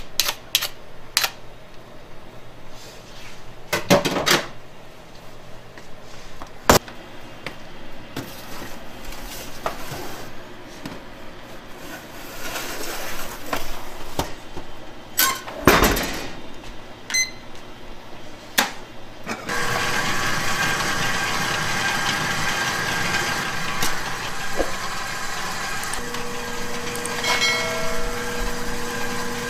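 Bakery kitchen work: scattered knocks and clatter of utensils and metal baking trays, the loudest as a tray is handled at the deck oven. From about two-thirds of the way through, a steady machine hum joins in and runs on.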